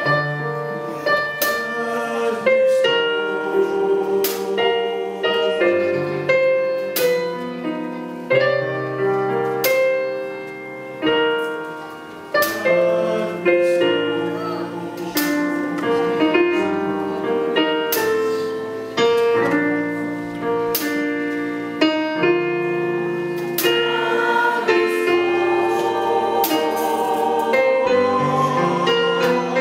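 Piano playing a slow introduction of separate struck notes and chords. Near the end a small choir comes in singing with it.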